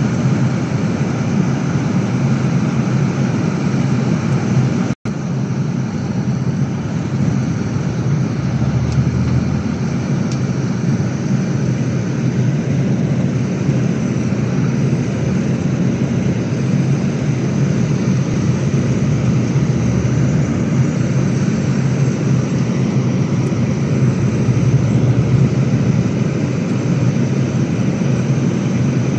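Steady engine drone and road noise heard from the upper deck of a Volvo B11RLET Plaxton Panorama double-deck coach under way. The sound cuts out for an instant about five seconds in.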